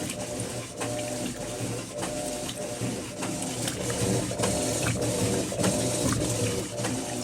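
Electrolux Turbo Limpeza LF10 top-loading washing machine running its wash cycle with a heavy load of blankets: a steady motor hum with water and a regular clicking about twice a second.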